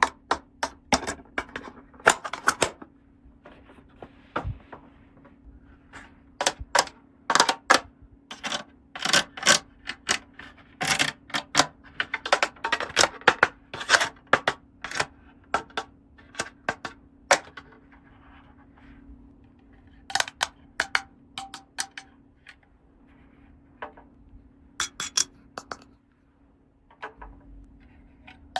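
Small hard plastic toy pieces being handled, giving many sharp, irregular clicks and taps in quick clusters with short pauses, over a faint steady hum.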